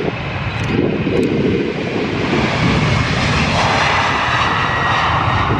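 Boeing 767 jet airliner's twin engines running at high power as it rolls down the runway, growing louder over the first second. A high engine whine rises above the noise about three and a half seconds in.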